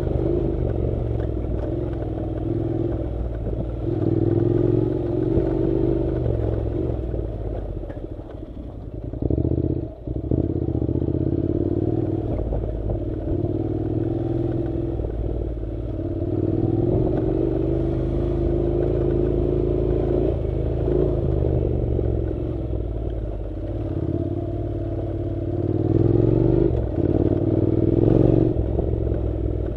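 Honda NC700's parallel-twin engine running on a dirt track, its pitch rising and falling with the throttle and easing off briefly about nine seconds in. A few knocks and clatter from the rough surface are heard along the way.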